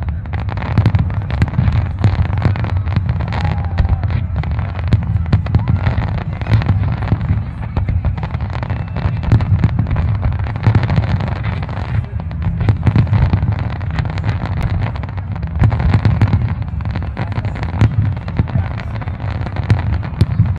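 Fireworks display: a dense, continuous barrage of aerial shells bursting, with many rapid sharp reports over heavy low booms and crackling stars.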